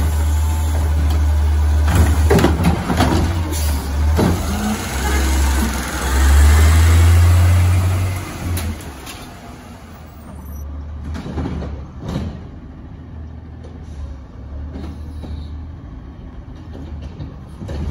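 Front-loader garbage truck's diesel engine revving as its hydraulic arms lift and dump a wheeled trash cart, with sharp clanks and bangs in the first few seconds. The engine is loudest about six to eight seconds in, then the truck pulls away and the sound drops to a distant rumble.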